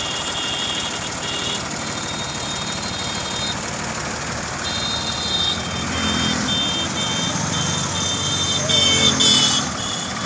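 Diesel engine of a Tata tanker truck idling steadily, with a high-pitched beeping that turns into regular short pulses about halfway through.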